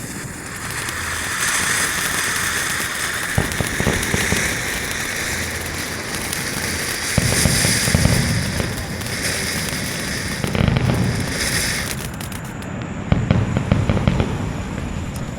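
Lit consumer firework hissing steadily, with crackling and pops from about halfway through and sharp crackles near the end.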